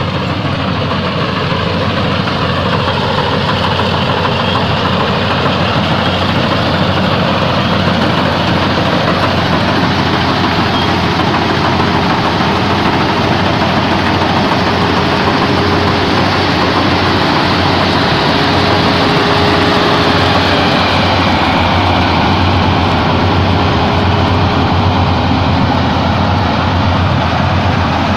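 Combine harvester running steadily, its engine and threshing machinery making a dense, loud mechanical noise while it harvests rice.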